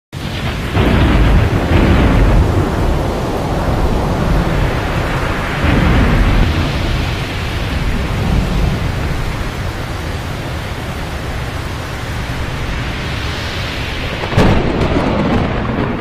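Thunderstorm sound effect: steady heavy rain under deep rolling thunder, which swells about a second in and again around six seconds. A sharp thunder crack comes near the end.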